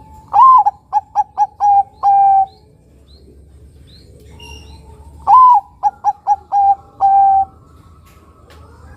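Bangkok-type zebra dove (perkutut) singing its cooing song twice. Each phrase opens with a loud note that rises and falls, then four short quick coos and a longer held coo at the end.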